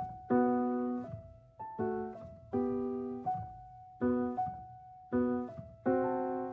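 AI-generated contemporary jazz: piano chords struck about once a second and left to ring and fade between strokes.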